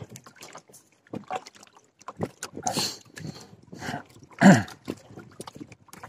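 Choppy lake water slapping and sloshing in irregular splashes, with a louder thump about four and a half seconds in.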